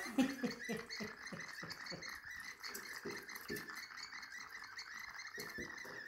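Novelty chirping-bird pour spout on a wine bottle, giving a steady high warbling chirp as wine runs through it. Under it is a quick glugging gurgle of several strokes a second.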